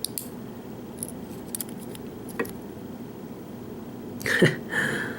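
A few light, sharp metallic clicks, then a louder scrape about four seconds in, as the springs and pins are taken out of a pin-tumbler lock's chambers.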